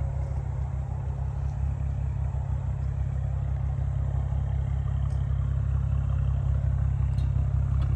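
A BMW coupe's straight-piped exhaust idling with a steady low rumble.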